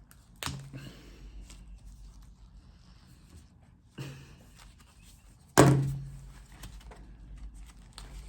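Old mobile phones being handled and put down on a hard surface: three thuds, about half a second, four and five and a half seconds in, the last the loudest with a short low ring after it, and lighter clicks and rattles between.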